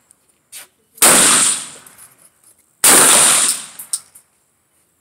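Black Aces shotgun firing slugs: two heavy shots a little under two seconds apart, about a second in and near the three-second mark, each trailing off over about a second.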